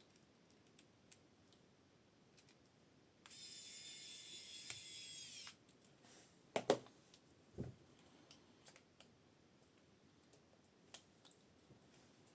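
A small electric motor whines for about two seconds, its pitch dropping slightly as it stops. Then come two sharp clicks or knocks about a second apart, and light clicks of small parts being handled.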